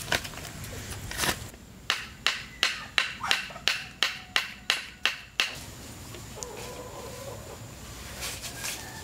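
A quick series of about a dozen sharp strikes, about three a second, each with a brief ring, stopping about halfway through.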